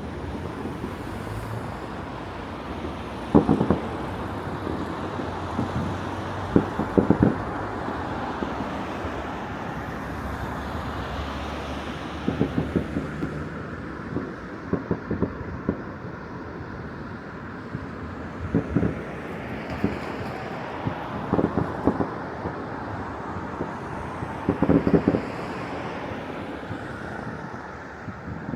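Distant fireworks banging and crackling in short scattered clusters over a steady hum of city traffic.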